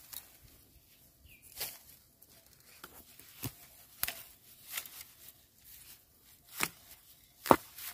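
Dry bamboo litter and shoot sheaths snapping and crackling: scattered sharp cracks at irregular intervals, the loudest near the end, as bamboo shoots are broken off by hand.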